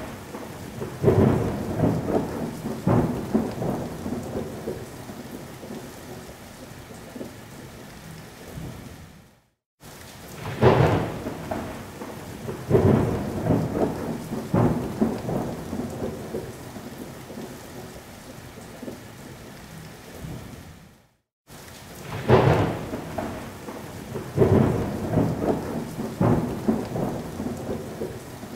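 Thunderstorm: thunder cracks rolling off into rumbles over steady rain. The same recording of about eleven seconds is looped, fading to a brief silence before each repeat.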